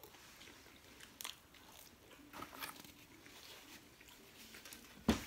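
Faint biting and chewing of pizza and chicken wings, with a few short crisp clicks. A single louder thump comes near the end.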